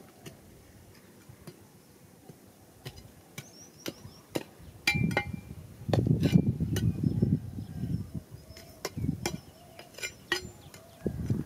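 Stones clicking against one another and scraping in loose rocky soil as a person digs and sorts rocks by hand with a small tool. Scattered sharp clicks, then heavier rough scraping and scuffling in the gravel from about halfway through.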